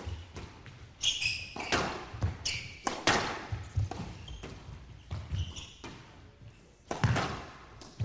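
A squash rally: the ball is struck by rackets and smacks off the court walls in a run of sharp, echoing cracks at irregular spacing, with a lull in the middle. Short squeaks of court shoes on the floor come between the shots.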